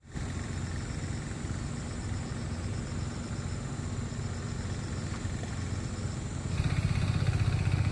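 A small engine running steadily with a low rumble, growing louder about six and a half seconds in.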